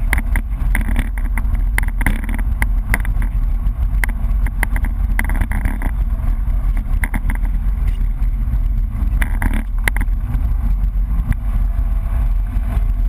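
BMW E30 rally car driven hard, heard from inside the cabin: a steady, loud engine drone with road noise, and many sharp clicks and knocks through it.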